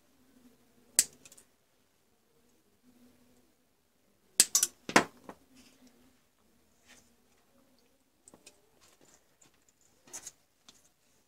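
Diagonal wire cutters snipping and stripping insulation from thin wires, one sharp snip about a second in. A louder clatter of several knocks follows about four and a half seconds in as the cutters are set down on the wooden workbench. Lighter scattered clicks of handling come after.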